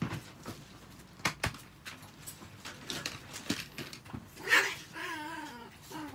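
Knocks and clicks from a plastic dog toilet tray and pads being handled. About four and a half seconds in there is a loud sharp sound, then a caged Chihuahua gives a short wavering whine.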